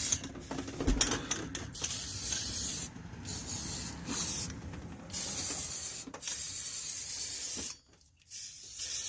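Aerosol spray can spraying a rust-preventive coating onto rear drum-brake parts in a series of hissing bursts of one to two seconds each, with short pauses between them and a brief full stop near the end.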